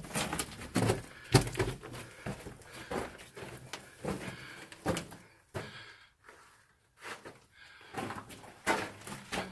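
Footsteps on the loose rock floor of a narrow mine tunnel, uneven steps about one or two a second, pausing for a moment a little past halfway.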